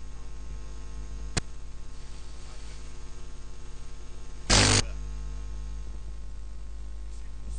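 Steady electrical mains hum from the recording chain, with a single sharp click about a second and a half in and a brief loud burst of noise a little after four and a half seconds.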